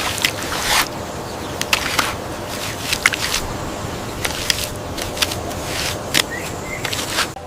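Irregular sharp knocks and clicks with a few scrapes over a steady rustling background, like hand building work with bamboo and mud.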